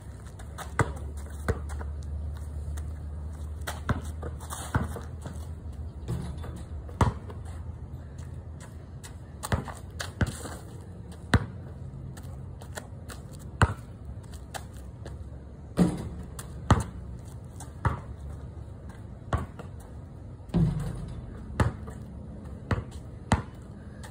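Basketball bouncing on a concrete driveway: single sharp bounces at uneven intervals, over a steady low hum.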